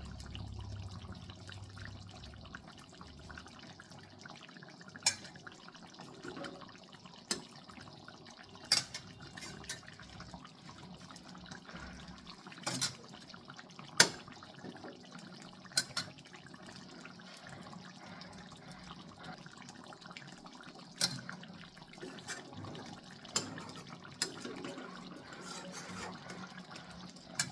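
Steady faint sound of running or splashing water, as at a kitchen tap or sink, with sharp clinks every couple of seconds, the loudest about halfway through.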